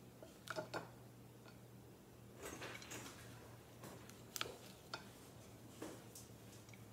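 Wooden spoon scooping broccoli slaw from a glass bowl onto a plate: a handful of faint, scattered taps and scrapes, over a steady low hum.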